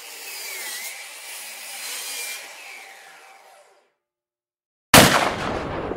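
Logo-animation sound effects: a saw-like whirring noise for about four seconds that fades out, a second of silence, then a sudden loud hit about five seconds in that dies away.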